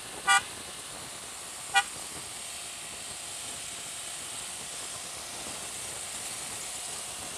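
Two short toots of a motorcycle horn about a second and a half apart, the second one briefer, over steady wind and road noise from riding.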